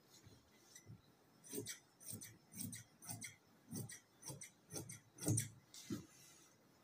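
Tailor's scissors snipping through cotton cloth in a run of short, faint cuts, about two a second, trimming the selvedge off the fabric.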